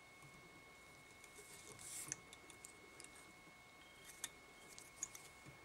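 Near silence with faint rustles and small clicks as black chenille is wrapped around a fly hook held in a tying vise, over a faint steady high hum.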